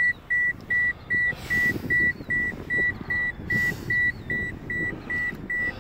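A vehicle's electronic warning chime beeping steadily at one high pitch, about two and a half beeps a second, over a low rumble.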